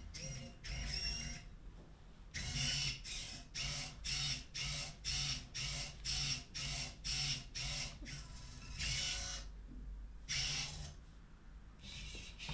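Servo motors of a small UBTECH Alpha humanoid robot whirring in short, rapid bursts, about two or three a second, as it moves its arms, with two longer whirs near the end.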